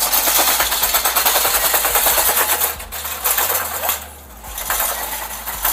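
Rapid, dense crackling and rustling right on a police body camera's microphone, like fabric or gear rubbing against it. It briefly eases about four seconds in.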